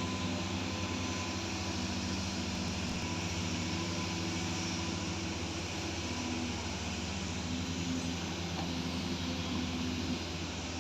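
Diesel engine of heavy earthmoving equipment running steadily at a constant speed.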